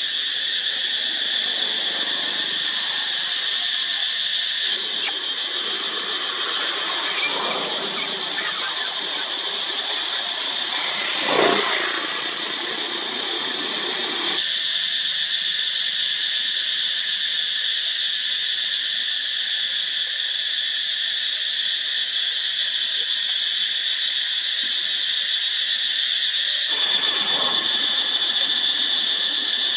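Steady, high-pitched drone of insects buzzing in the trees. A short louder sound cuts through it about eleven seconds in.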